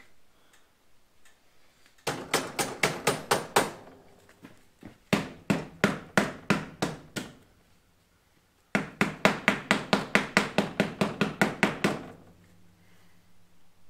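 Pleated paper air filter from a Briggs & Stratton lawn-tractor engine being rapped against a hard surface to knock the dirt out: three quick runs of sharp taps, about six a second, with short pauses between.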